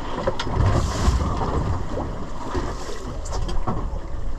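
Wind buffeting the microphone on an open boat, with sea water slapping at the hull and a few light knocks.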